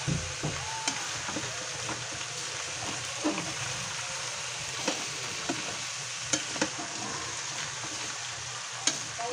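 Chopped roast pork (lechon) sizzling in a wok as it is sautéed with garlic and onion. A metal spatula stirs it, scraping and clinking against the pan every second or two.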